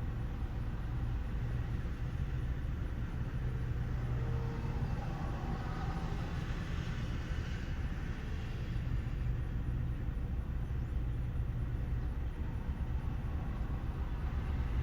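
Steady low rumble of a vehicle's engine and cabin noise heard from inside the vehicle, with a faint hiss that swells a little about halfway through.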